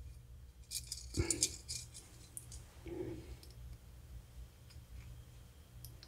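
Faint light metallic clicks and clinks of a set of torch tip cleaners being handled, as wires are picked out and tried in a carburetor idle jet. The clearest clicks come a little after a second in and again around three seconds in, over a low steady hum.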